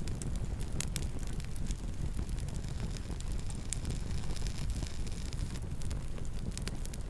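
Campfire burning, with many irregular sharp crackles and pops over a steady low rumble.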